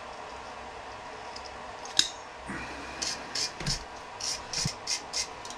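Brass wire brush scrubbing rust off a small metal part held in locking pliers: a run of about eight quick scratching strokes, a few a second, starting about three seconds in. A single sharp click comes shortly before the strokes.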